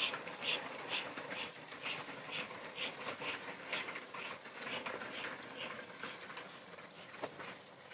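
American Flyer S gauge model freight train running on its track: a steady rolling rumble with a regular ticking about twice a second, fading as the train moves away.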